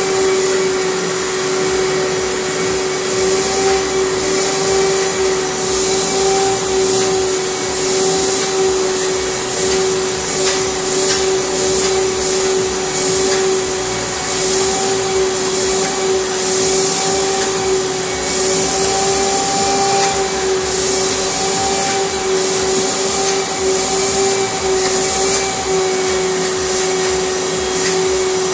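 Vacuum cleaner running steadily with a constant hum while it is worked over a bulldog's coat to pull out loose, dead hair. Its hiss swells and fades every second or so.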